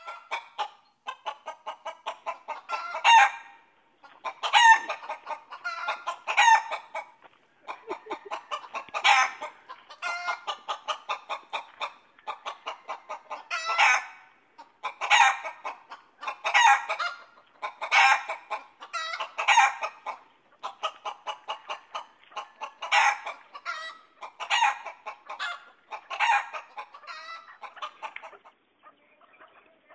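Chickens cackling: rapid runs of clucks with a loud squawk every second or two, the alarm cackle of hens being chased.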